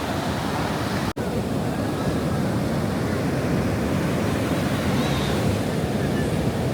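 Steady roar of ocean surf breaking and washing in, mixed with wind on the microphone.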